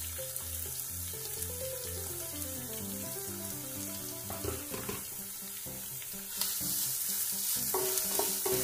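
Chopped onions sizzling as they fry in hot ghee in a nonstick kadhai, with a wooden spatula scraping and stirring them; the sizzle grows louder about six seconds in. Soft background music plays underneath.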